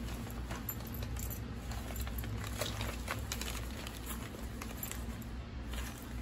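Paper packing filler crinkling and rustling as a cat rolls and rubs on it: irregular crackles, densest about two to three and a half seconds in, over a steady low hum.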